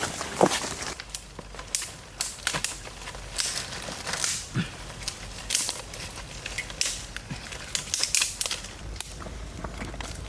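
Irregular small clicks and taps over a soft crinkling rustle, coming a few times a second at uneven intervals.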